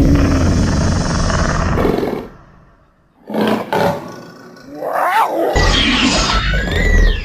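Film sound effects for a velociraptor: a long, loud, low roar that stops about two seconds in, a short growl near the middle, then a screeching call whose pitch slides up and down over the last two seconds.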